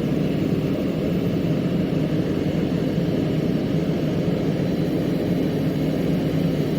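Heavy diesel engine running steadily at a constant speed, a low even drone with no change in pitch.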